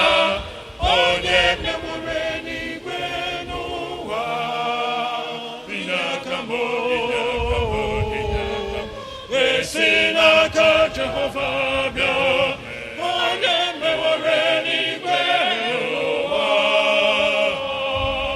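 Church choir singing held notes with vibrato.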